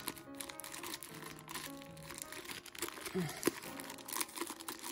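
Plastic wrappers of small repair-kit packets crinkling and rustling as they are pushed by hand into a hard plastic bottle-shaped tool case, with a few small clicks, over background music.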